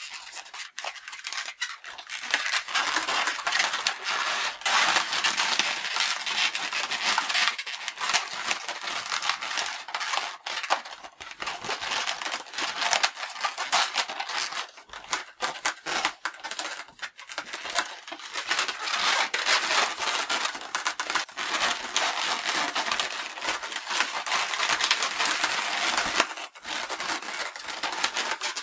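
Inflated latex modelling balloons rubbing and squeaking against each other in the hands, a steady crackle of small squeaks, as a yellow banana bunch is twisted and pressed into a balloon palm tree.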